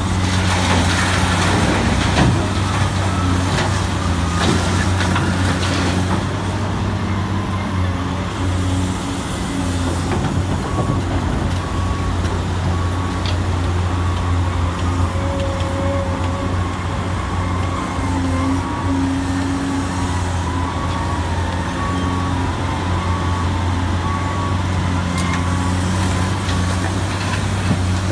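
Huina remote-control excavator working, with a steady low engine-like drone. A faint beep repeats about once a second through the second half.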